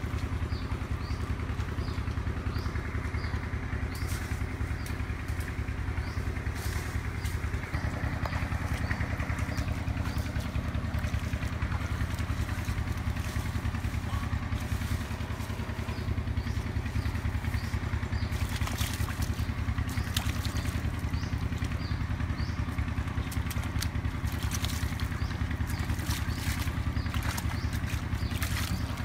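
A small engine running steadily, a low hum with fine rapid pulsing. Over it come scattered splashes and squelches of bare feet wading through shallow muddy water, with a cluster of sharper ones about two-thirds of the way through.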